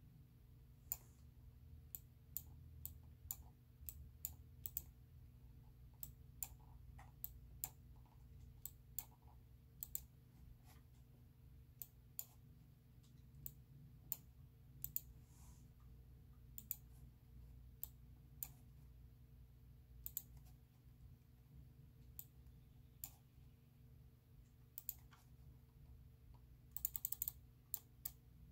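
Faint, scattered single clicks on a laptop as points are placed one by one while tracing an outline with a Bezier tool, with a quick run of several clicks near the end. A low steady hum sits underneath.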